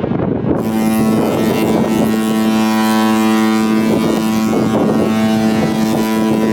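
Kahlenberg KM-110 ship horn sounding one long, steady blast. It starts about half a second in and holds a single pitch rich in overtones, with wind noise on the microphone.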